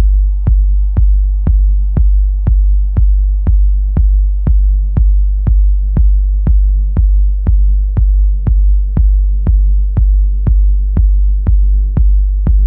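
Electronic music: a drum-machine kick beating steadily about twice a second over a deep held bass and soft sustained synth tones.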